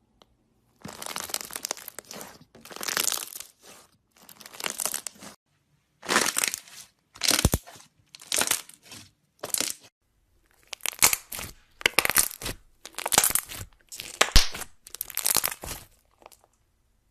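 Slime being squeezed and pressed by hand, making a series of short crackling bursts with brief pauses between them.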